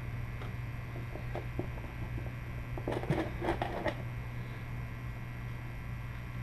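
Small metal clicks and rattles of hand tools being handled on the oil filter, thickest about three seconds in, over a steady low hum.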